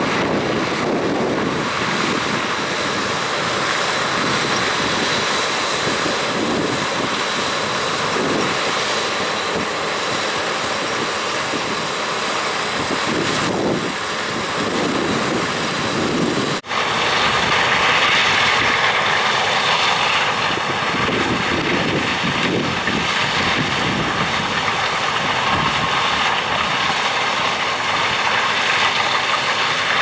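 John Deere S680 combine's diesel engine and threshing machinery running steadily while harvesting corn, with a tracked John Deere tractor pulling a grain cart alongside in the first half. The steady drone is broken by a short gap at an edit about halfway through.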